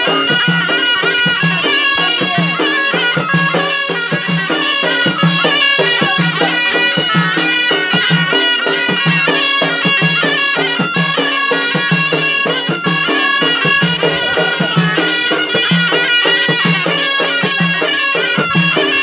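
Live traditional folk music: hand-beaten frame drums (bendir) keeping an even, repeating beat under a held, reedy wind-instrument melody, with no break.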